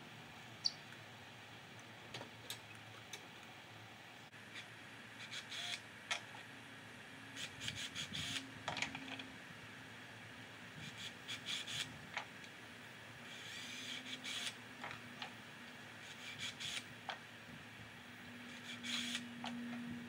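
Scattered clicks, taps and knocks of hand work with tools and parts, coming in clusters, with a short low hum three times: near the middle, a little later, and near the end.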